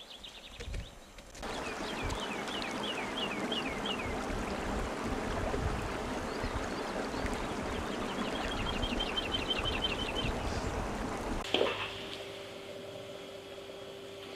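Small mountain stream babbling steadily, with a songbird singing over it: a short run of falling chirps, then a fast trill. Near the end it cuts off to a quieter room with a faint steady hum.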